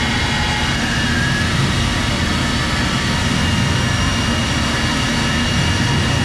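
Steady engine drone with a thin, high, continuous whine on top, holding level without any revving.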